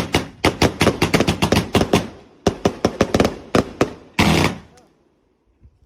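Fireworks going off in rapid volleys of sharp bangs, about six a second, in two runs. A longer crackling burst follows about four seconds in, then it falls nearly quiet.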